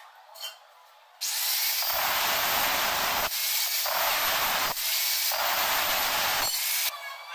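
Handheld angle grinder starting about a second in and cutting through square steel tubing, a loud steady grinding that deepens in three stretches as the disc bites into the metal, then stops near the end.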